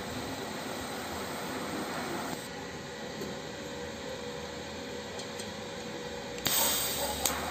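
TIG welding on a stainless steel car muffler: a steady hiss and hum. Near the end a much louder hiss rises suddenly for under a second and ends in a sharp click.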